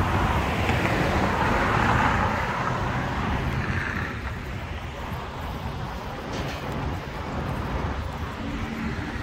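Road traffic: a vehicle rushes past, swelling over the first two or three seconds and fading, over a steady low traffic rumble.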